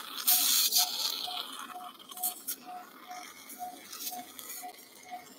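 Anaesthetic patient monitor beeping in time with the anaesthetised dog's pulse: a short mid-pitched beep about twice a second, keeping an even rhythm. Light clinks and a rustling hiss of metal surgical instruments are heard in the first second, with a few sharp clicks later.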